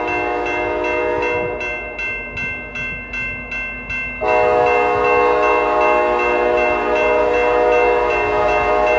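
Grade-crossing bell ringing about three times a second while an approaching locomotive sounds its multi-note air horn. The horn is on at the start, breaks off after about a second and a half, then comes back long and louder about four seconds in.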